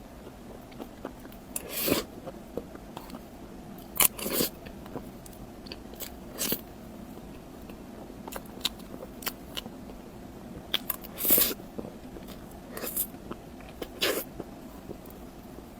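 Close-miked eating: a person biting and chewing food, with about half a dozen sharp louder crunches a few seconds apart and smaller clicky mouth sounds in between.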